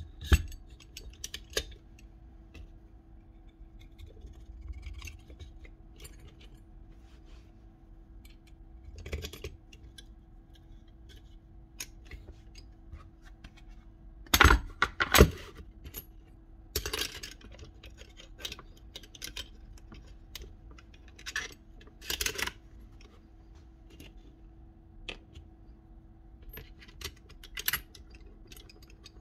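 Small metal tool parts and screws being handled and set down on a workbench during nail-gun reassembly: scattered clicks, clinks and light knocks, two of them louder about halfway through, over a steady faint hum.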